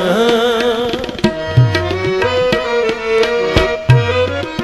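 Instrumental break in a Punjabi Diwali song. Tabla plays steady strokes, with bass strokes that bend in pitch, over held melodic tones. The singer's last note fades out in the first second.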